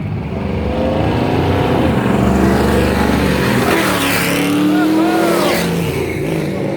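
Loud cars driving past one after another, their engines revving so that the pitch rises and falls over a continuous exhaust rumble.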